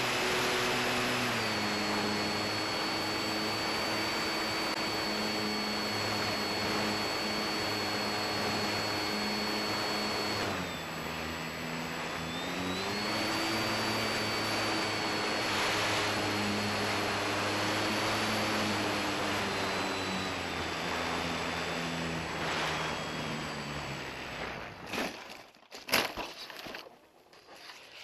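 Electric motor and propeller of a Durafly Tundra RC plane, heard from its onboard camera as a steady buzzing whine with wind rushing over it. The pitch drops about ten seconds in and climbs back a couple of seconds later, then falls lower as the throttle comes back. It stops near the end, and a few sharp knocks follow as the plane touches down in grass.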